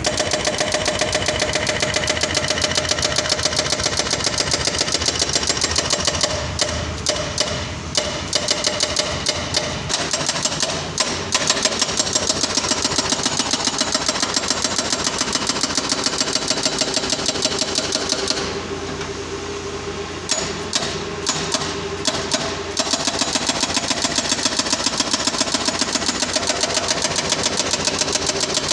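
Doosan hydraulic breaker on an excavator hammering a pile with rapid, evenly spaced blows over the excavator's steady engine. About two-thirds of the way through the hammering stops for about two seconds, leaving only the engine, then starts again.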